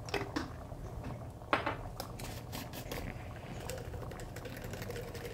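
Thick chickpea-and-kidney-bean gravy boiling in an aluminium pot, its bubbles bursting in irregular pops and plops over a low steady hum.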